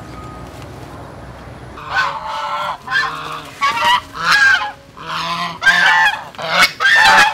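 Domestic goose honking: a run of about eight loud, repeated honks that starts about two seconds in.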